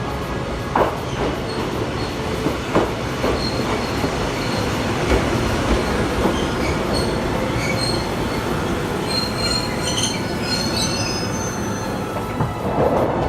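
Ōigawa Railway electric train running along the track, heard from inside the carriage: a steady rumble of wheels on rail with a few clacks over rail joints in the first seconds. Brief high-pitched wheel squeals come in the second half, from wheel flanges grinding on a curve.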